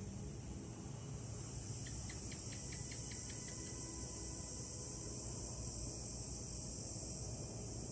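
Steady high-pitched chorus of insects in the evening, with a quick run of about eight chirps, some five a second, starting about two seconds in.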